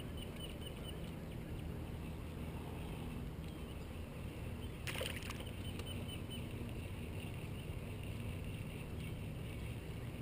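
Steady low rumble of water against a small fishing boat, with one short sharp sound about five seconds in.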